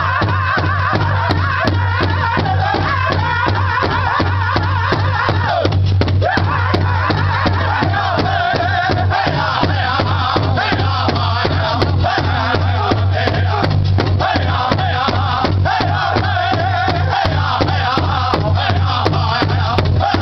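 Powwow drum group singing a contest song around a big drum: a group of voices chanting high in unison over an even drumbeat of about three strokes a second, with a steady low hum beneath.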